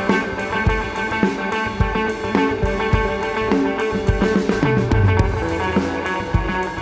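Electric guitar, a Fender Meteora through a modelling unit and a Fender Tone Master amp, playing sustained ambient lines over hand percussion keeping a steady shuffle beat. The music has a Celtic shuffle feel.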